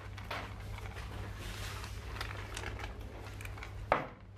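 A cat chewing crunchy Dreamies treats, with scattered small crunches over a low steady hum. One sharp knock comes near the end.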